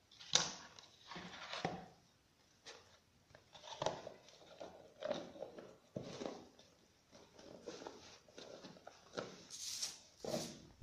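Clear plastic food box being handled while its snap-on plastic lid is pressed shut: a string of irregular faint knocks, clicks and rustles, with the box set down on the floor near the end.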